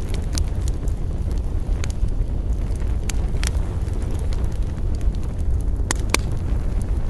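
Campfire burning with a steady low rumble and scattered sharp crackles and pops of burning wood, a pair of louder pops near the end.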